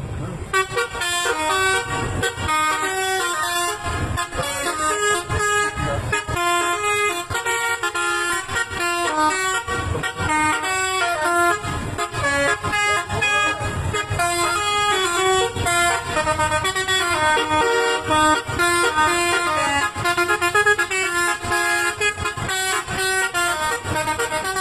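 Bus telolet horn, a set of electrically sequenced air horns, playing a fast melody of short stepped notes that switch pitch several times a second, one tune after another.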